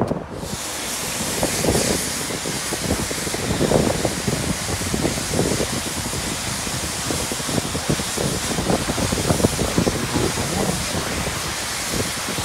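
Self-service car wash high-pressure wand spraying water, a steady hiss that switches on suddenly just after the start, with wind buffeting the microphone underneath.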